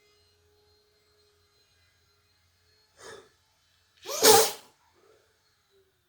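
A person sneezing once: a short, quieter intake about three seconds in, then a loud explosive "choo" about a second later.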